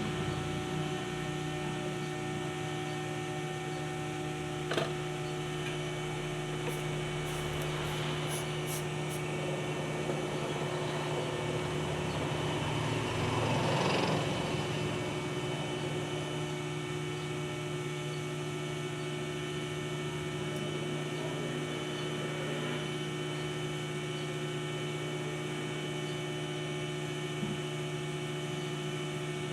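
Steady electrical hum made of several fixed tones, with a single click about five seconds in and a brief swell of rustling noise around fourteen seconds.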